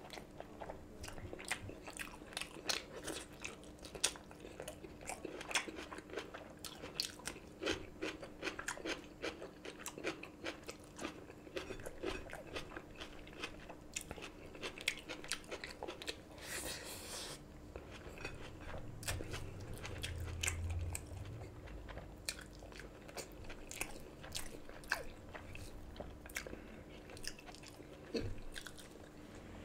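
Close-miked chewing of hand-eaten rice and curry, with many short mouth clicks and smacks following one another all through.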